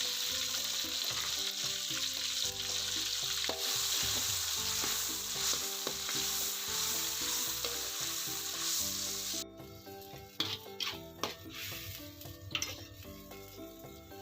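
Stir-fry of sweet potato leaves sizzling loudly in a hot pan as it is stirred. The sizzle cuts off suddenly about two-thirds of the way through, and a few sharp knocks of a utensil on the pan follow.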